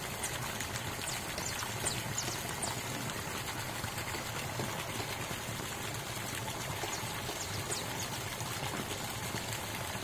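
Steady sound of running water, a continuous pouring and trickling.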